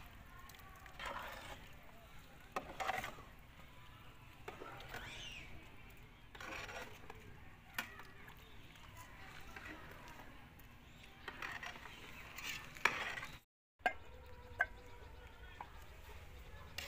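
A metal spoon stirring a thick, simmering carrot and rice kheer in a large aluminium pot, with occasional sharp clinks of the spoon against the pot's rim and sides.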